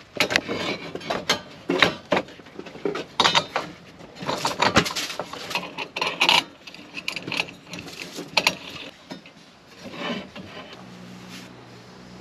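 Irregular knocking, scraping and clattering of hard objects being handled, with a low steady hum starting near the end.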